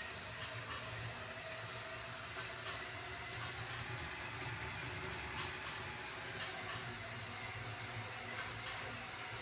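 Small electric motor of a LEGO train locomotive running steadily, its wheels rolling along plastic track, with a few faint clicks now and then.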